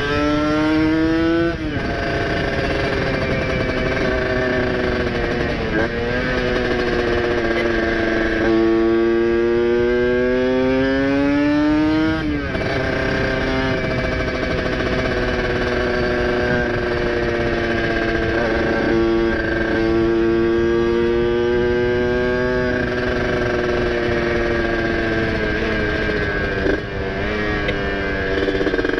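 Kawasaki Ninja RR two-stroke engine, with a ported cylinder, a PWK 30 carburettor and an ABRT exhaust, pulling under load. The pitch climbs steadily and drops sharply at gear changes, about a second in and again about twelve seconds in. It then holds a fairly steady pitch for some ten seconds before it becomes uneven near the end.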